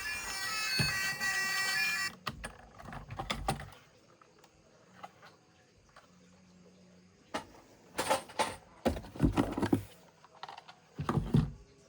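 Background music for about the first two seconds, then bursts of clicking and rattling from small plastic toy vehicles being handled. There is a near-quiet gap in the middle, and a busier cluster of clicks near the end.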